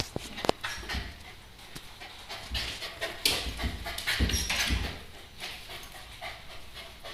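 A dog panting in irregular bursts, with a few short clicks near the start.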